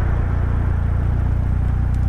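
Westfield SEiW kit car's engine running at a steady speed, a deep even hum with no change in revs.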